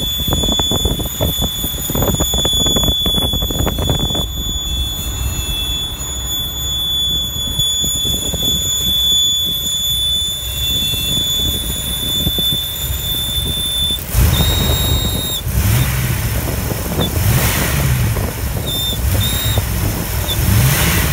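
2004 Jeep Wrangler TJ engine idling warm with a steady high-pitched whistle over the engine sound. The owner traced the whistle to a loose manifold bolt nearest the firewall. About two-thirds of the way through, the engine sound rises and falls and the whistle cuts out, coming back in short spells.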